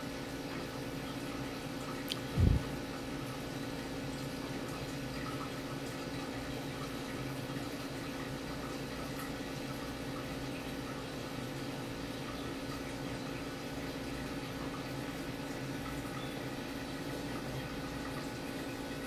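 Aquarium water circulation: steady water noise over a low, even hum, as from the tank's filter and pump running. A single short low thump comes about two and a half seconds in.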